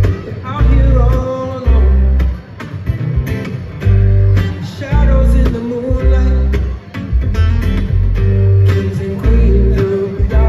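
Live acoustic band music: upright double bass playing deep, repeated notes under two strummed and picked acoustic guitars, with a man singing at times.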